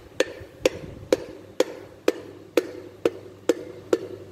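Wooden hammer handle tapping a piston down through a ring compressor into a cylinder bore of a Chevrolet 454 big-block V8. Evenly spaced taps, a bit over two a second, each with a short ring after it.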